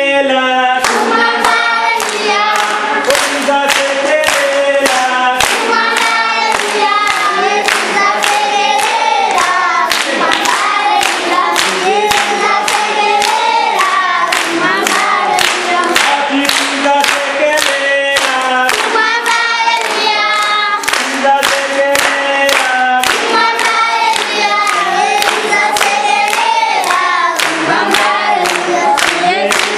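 A group of children singing together, accompanied by steady hand clapping at about two claps a second.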